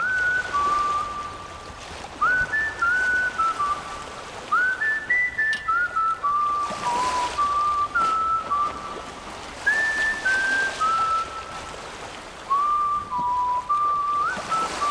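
A whistled melody: a single clear line of held notes, several reached with a short upward slide. It plays over a soft rushing noise that swells about halfway through and again near the end.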